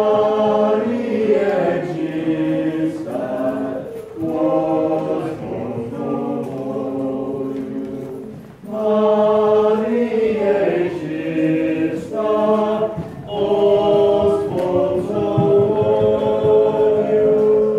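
Group of voices singing Byzantine-rite liturgical chant a cappella, in phrases a few seconds long with short breaks between them.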